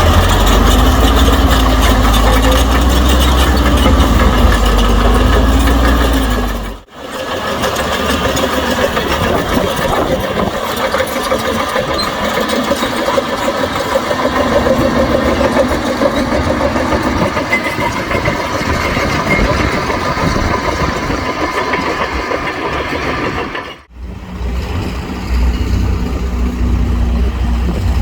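Heavy diesel engine of earthmoving machinery running under varying load: at first a deep heavy rumble whose pitch rises and falls. The sound cuts out abruptly about seven seconds in and again near the end, and each time it comes back with a different engine sound.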